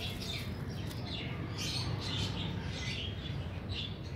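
Small birds chirping, short calls repeated several times a second, over a steady low background hum.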